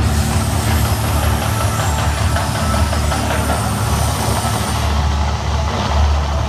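The Mirage volcano show erupting: a loud, steady, deep rumbling roar as the gas fire effects burn, with a high hiss on top that stops about five seconds in.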